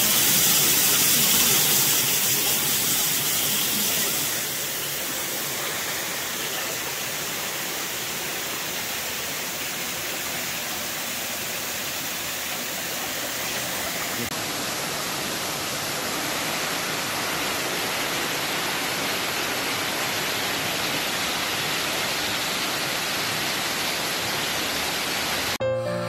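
Steady rushing of a waterfall, a little quieter after about four seconds. Music cuts in right at the end.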